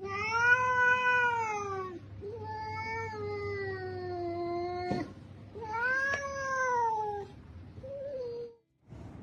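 A cat meowing in three long drawn-out calls, each rising and falling in pitch, then a short, quieter meow near the end. A sharp click comes about five seconds in.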